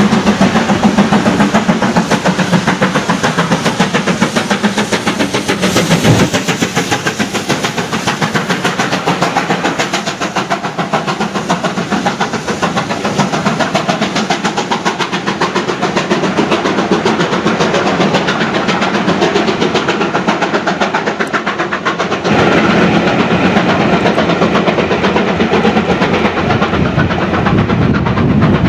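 Two-cylinder BR Britannia Class 4-6-2 steam locomotive 70000 working hard to accelerate a twelve-coach train, a fast, even exhaust beat over the clatter of the coaches rolling past.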